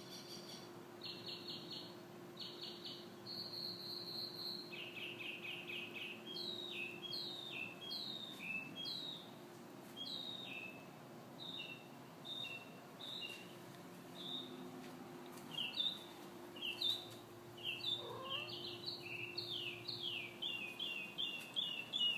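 A songbird singing a long, varied song of fast trills and runs of repeated down-slurred whistled notes, with a faint steady hum underneath.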